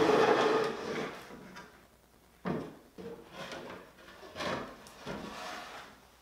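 Wooden cedar cabinet scraping as it slides across a wooden workbench top, then knocking and bumping on the bench as it is tipped up on end and turned.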